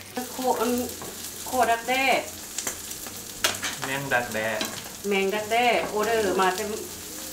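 Silkworm pupae sizzling in a frying pan as they are stir-fried, with a few sharp clicks of the spatula against the pan. A voice talks over the sizzle in several short stretches, and these are the loudest part.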